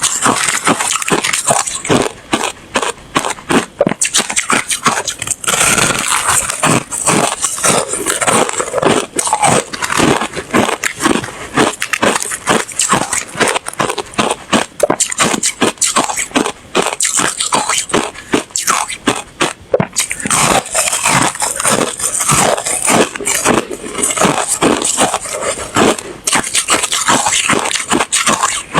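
Ice being bitten and chewed close to the microphone: a fast, irregular run of loud crunches and cracks.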